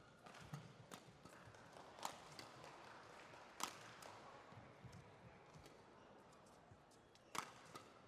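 Badminton rackets hitting a shuttlecock during a doubles rally: sharp, faint cracks one to a few seconds apart, the loudest about two, three and a half and seven and a half seconds in, with lighter ticks between them over a low hall hum.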